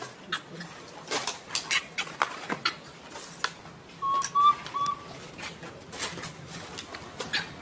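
Bird call: three short whistled notes at one steady pitch about four seconds in, among scattered sharp clicks and chirps.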